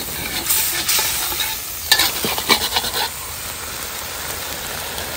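Chili-paste sauce sizzling in a steel wok as a metal spatula stirs it. A few sharp clinks and scrapes of the spatula on the wok come in the first three seconds, then an even sizzle.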